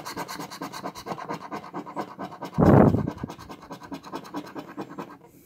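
A metal coin scraping the latex coating off a paper scratch-off lottery ticket in rapid back-and-forth strokes, about eight a second. A short louder burst of noise comes about two and a half seconds in, and the scraping fades out near the end.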